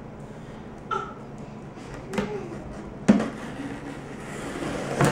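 A small blade cutting through packing tape along the seam of a cardboard box, with a few sharp knocks and taps against the box, the loudest about three seconds in.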